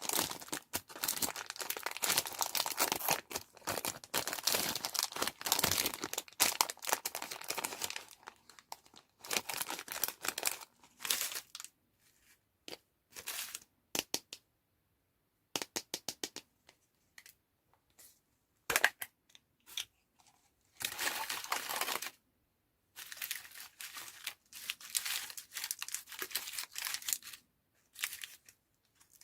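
Candy packaging being crinkled and torn open by hand, a dense run of crinkling for the first several seconds, then in short separate bursts and clicks with pauses between.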